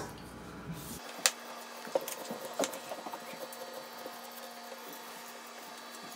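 Kitchen knife peeling a jícama: faint scraping with a few sharp clicks of knife and peel on a wooden cutting board, the loudest about a second in, then only small ticks.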